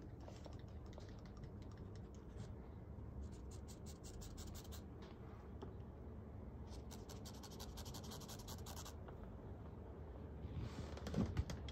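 Cotton swab rubbed quickly over paper, laying down a swatch of fountain pen ink: two spells of faint, fine scratching, one about three seconds in and one about seven seconds in.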